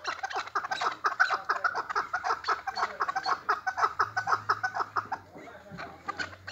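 Chukar partridge giving a rapid, chuckling run of short calls, about eight to ten notes a second, that weakens after about five seconds.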